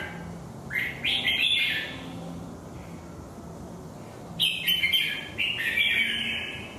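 Red-whiskered bulbul (chào mào) singing: two short phrases of quick, clear stepping notes, one about a second in and another after about four and a half seconds.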